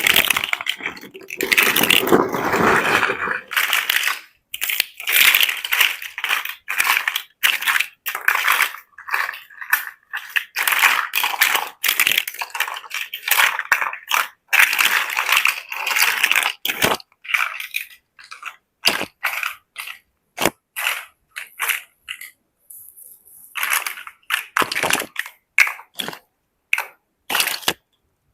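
Plastic building bricks clattering and clicking together: rapid runs of sharp snaps and rattles, broken by short gaps of silence.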